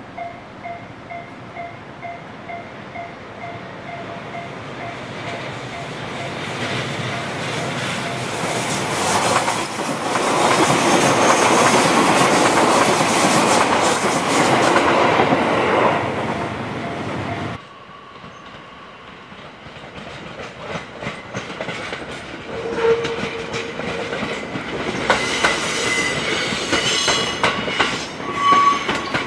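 E655 series 'Nagomi' electric train passing close by: its rail and running noise builds to a steady loud rush, with clickety-clack of the wheels over the rail joints, then cuts off abruptly about two-thirds of the way in. After that comes quieter rail noise with many clicks and brief wheel squeals as the train runs through again. In the first few seconds a short ringing tone repeats about three times a second.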